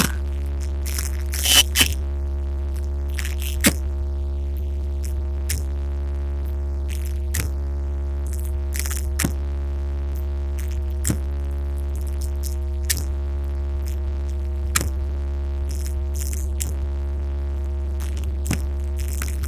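A steady, deep bass tone from a DJ truck's sound system, holding one pitch without change, with faint musical tones above it and scattered sharp clicks.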